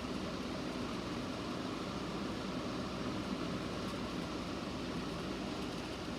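Steady, even hiss and hum of background room noise, with no alarm tone or voice message sounding while the strobe is tested on its own.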